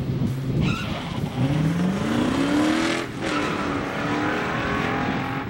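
1969 Pontiac GTO Ram Air IV 400 V8 launching hard from a standstill: a brief tire squeal as it leaves the line, then the engine note rising steadily at full throttle. About three seconds in it shifts up with a short break and drop in pitch, then pulls up again.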